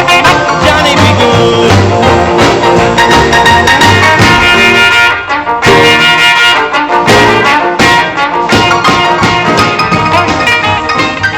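Background music with brass (trumpets and trombones) over a steady beat, with a short dip about five seconds in before it comes back in full.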